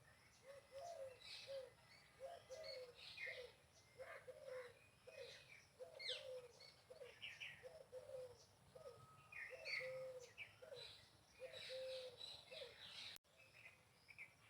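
Faint birdsong: a run of short low notes repeating about twice a second, with higher chirps and trills from other birds over them.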